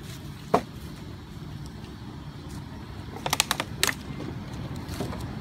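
Sharp clicks and crackles of a thin plastic drinking bottle handled by a monkey: one click about half a second in and a quick run of about five clicks around three and a half seconds in, over a steady low rumble.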